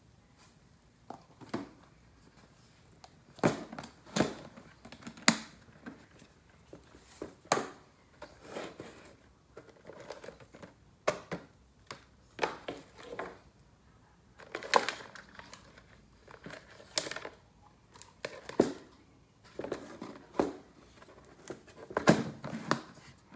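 Handling noise: irregular knocks, clatters and rustles as an electrical cord is uncoiled and a plastic case is set down and worked at on a workbench, about one or two knocks a second with no steady machine sound under them.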